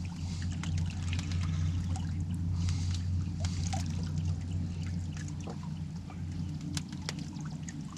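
Water trickling and lapping against a small boat's hull over a low steady hum, with a few faint clicks near the end.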